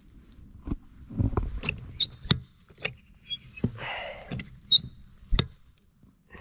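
Lever of a blue yard hydrant being worked up and down: a string of sharp metal clicks and clanks with squeaks, and a short hiss about four seconds in. The hydrant gives no water; it isn't working.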